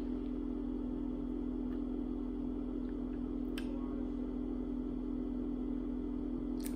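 A steady low hum, with two brief faint clicks, one a little past halfway and one near the end, from the mouth licking a roller-ball liquid candy.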